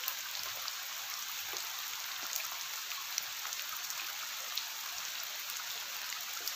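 Rain falling steadily on a river's surface: an even hiss with scattered small drop ticks.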